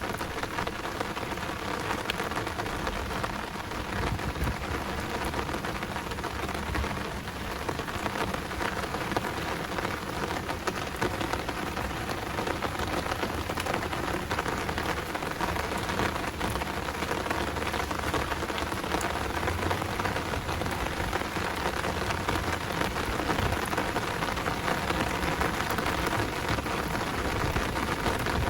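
Heavy rain falling steadily, a dense hiss of countless drop hits, with a low rumble of thunder partway through.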